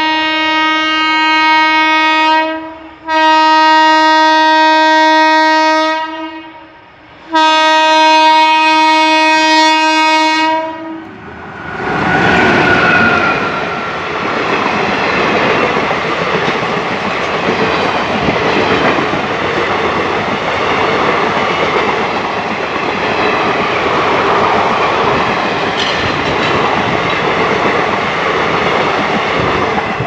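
WAP-4 electric locomotive's horn sounding loud, one steady note in three long blasts, the first already going at the start. About twelve seconds in, the train rushes past close by, and the passenger coaches' wheels on the rails keep up a steady rolling noise to the end.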